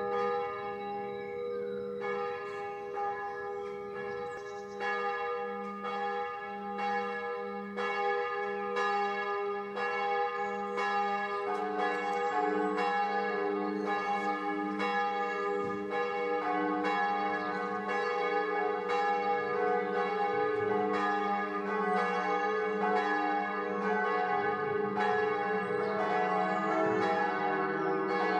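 Church bells ringing. One bell strikes steadily at a little over one stroke a second, and a second bell joins in about a third of the way through, so that two bells peal together.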